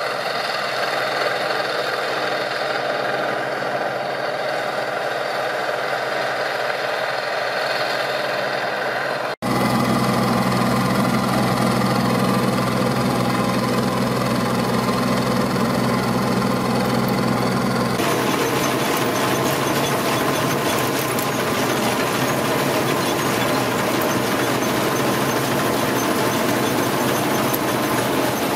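Bizon Z056 combine harvester's six-cylinder diesel engine running steadily, with the threshing machinery turning. The sound changes abruptly at about 9 s and again at about 18 s: the middle stretch is louder, with a deeper steady hum.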